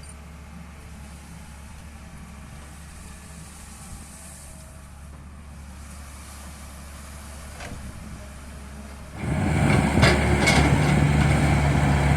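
Tata Hitachi excavator's diesel engine running with a steady low hum. About nine seconds in it becomes suddenly much louder, with clanks and rattles of the machine working.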